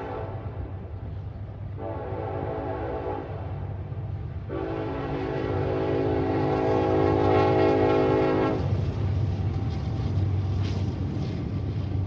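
Diesel locomotive air horn on the train's lead unit, a Union Pacific SD70AH, sounding as the train approaches: one blast cuts off just after the start, a short blast comes about two seconds in, and a long blast of about four seconds begins about four and a half seconds in, the closing short-long of a grade-crossing signal. Under the horn runs the steady low rumble of the train's diesel engines, growing louder as it nears.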